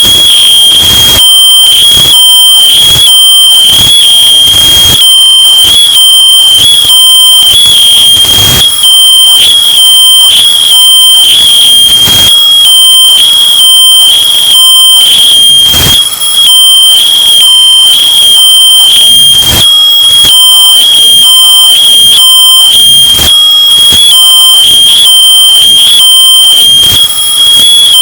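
Smoke detector alarm beeping in a rapid run of about two shrill high-pitched pulses a second, bass boosted and clipped into harsh distortion at very high volume.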